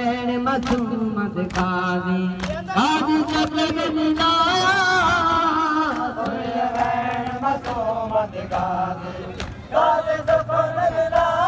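A man reciting a Punjabi noha, a Shia lament, in a long-drawn chanting melody, his held notes sliding from one pitch to the next. Sharp slaps come every second or so, in keeping with matam chest-beating by the mourners.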